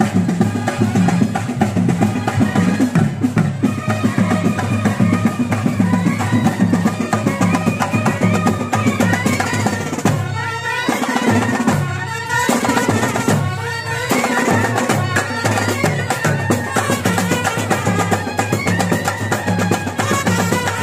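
Traditional drum music: a steady, fast drum rhythm with a melody line over it, thinning in a few short breaks about halfway through.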